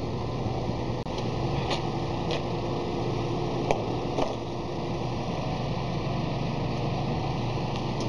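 Crane engine running steadily as the crane holds a section of the set. A few light knocks sound about two to four seconds in.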